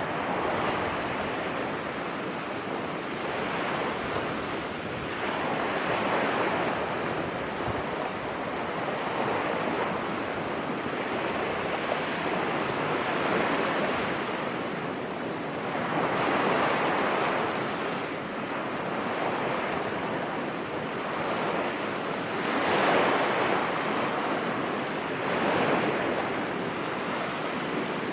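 Sea waves breaking on a beach: steady surf noise with a swell as each wave comes in every few seconds, and wind buffeting the microphone.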